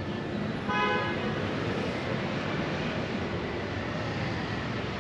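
City street traffic ambience: a steady wash of passing cars and motorbikes, with one short, high beep about a second in.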